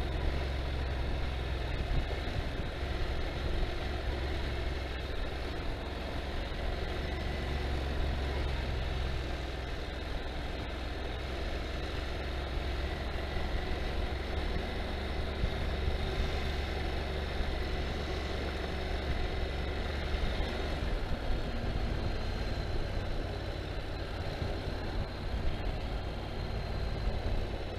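Dirt bike engine running steadily on the move, with a continuous low rumble underneath.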